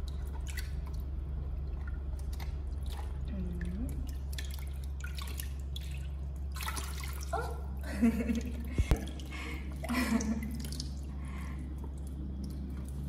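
Water splashing and dripping in a plastic basin as a baby monkey is moved about in it by hand, over a steady low hum. A few louder short sounds come about eight and ten seconds in.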